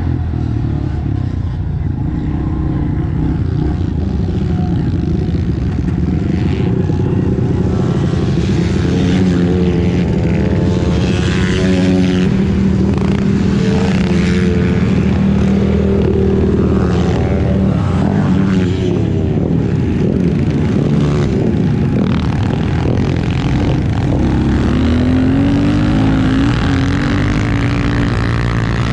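Pit bike engine running as the bike is ridden, the revs rising and falling with the throttle.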